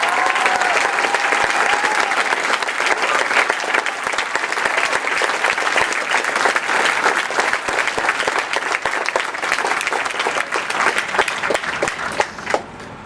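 Crowd applauding, dense clapping that thins to a few last claps and dies away near the end.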